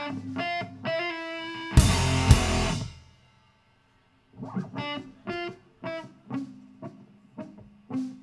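Live electric guitar playing short, separate picked notes. About two seconds in the full band comes in with one loud hit with drums and cymbal, then drops to about a second of silence. After that the guitar goes on with staccato notes and short pauses.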